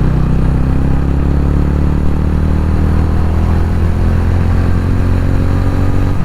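TVS Ronin 225's single-cylinder engine running at a steady pitch while the motorcycle is ridden.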